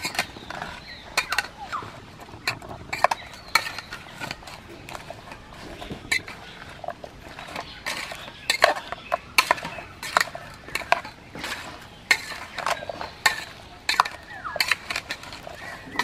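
A metal spoon stirring and scraping chunks of raw jackfruit through spice paste in a metal pot, with irregular clinks and scrapes of spoon against the pot, several a second.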